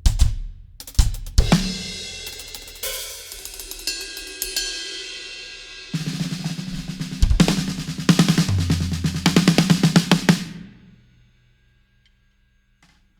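Acoustic drum kit being played in the studio for a sound check. A few sharp hits come first, then a crash cymbal rings for several seconds. After that a fast run of snare and tom strokes starts about six seconds in and stops short about eleven seconds in.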